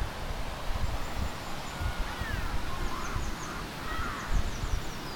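Faint bird calls, short whistles and quick high chirps, over a low uneven rumble of wind on the microphone.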